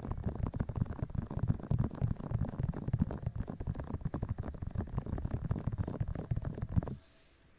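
Hands rubbing and massaging directly on an ASMR microphone, the ear-massage kind of trigger: a dense, rapid crackling rub, mostly low in pitch. It stops suddenly about seven seconds in.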